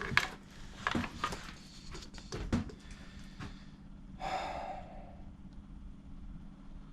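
A few light clicks and knocks of engine parts being handled, then a single sharp breath out, a sigh, about four seconds in.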